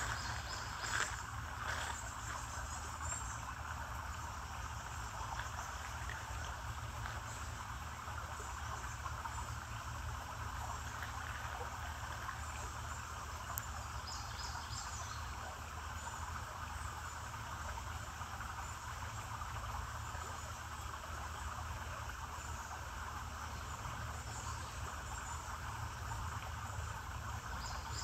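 Steady insect chorus in summer woods, a continuous even buzz, over a low steady rumble, with a few faint high chirps partway through and near the end.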